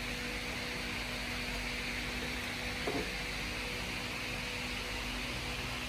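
Steady background hiss with a low, even hum, and a brief soft handling sound about three seconds in as cables are plugged into the DJ equipment.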